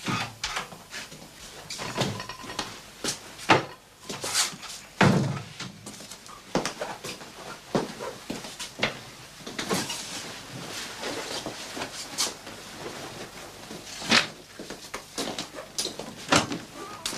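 Irregular knocks and clicks of a door with a frosted-glass pane being handled and shut, along with a person's steps through a hallway. The deepest, heaviest thump comes about five seconds in.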